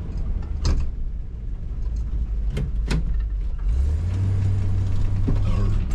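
Chevy K5 Blazer engine running steadily while driving, with a few sharp knocks from the truck that are taken for something loose. The engine note grows stronger about two-thirds of the way in.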